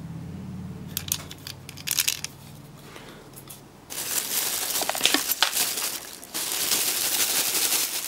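Plastic parts bags crinkling as a hand rummages through a case of small typewriter spare parts, after a few light clicks of parts being handled. The crinkling starts about halfway and pauses briefly near the end.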